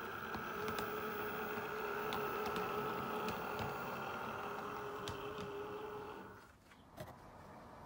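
A model diesel multiple unit running past on the track, its small electric motor humming steadily with occasional light clicks from the wheels and track, then fading away about six seconds in.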